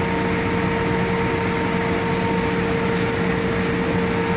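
Steady machine hum with a constant low drone and a fixed mid-pitched whine, from a running engine or motor.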